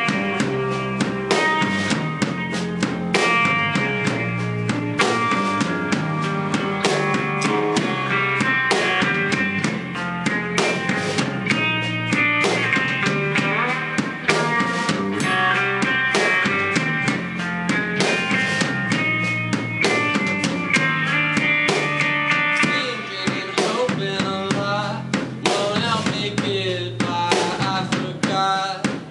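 Live band playing with a full drum kit, bass drum and snare keeping a steady beat under electric guitars.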